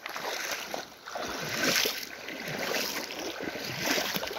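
Water splashing and sloshing around legs wading through a shallow river, with a louder splash a little under two seconds in.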